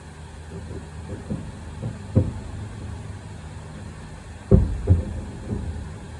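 Fireworks bursting: a series of low booms over a steady low rumble, one about two seconds in and the two loudest close together a little past halfway.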